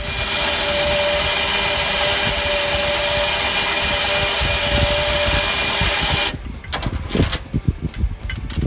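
A machine running steadily with a whine, then cutting off abruptly about six seconds in, followed by a few scattered knocks.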